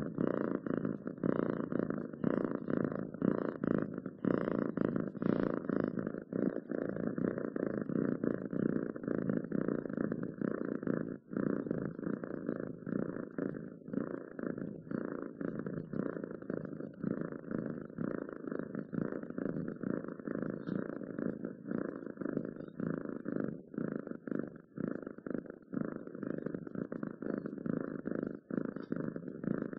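Domestic cat purring continuously in a fast, even pulse, relaxed and content, with a brief break about eleven seconds in.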